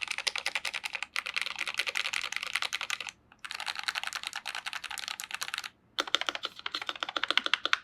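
Fast typing on a GMMK Pro custom mechanical keyboard with lubed Gateron Ink Black V2 linear switches and Pressplay keycaps. A rapid run of keystrokes has short pauses about a second in, about three seconds in, and just before six seconds.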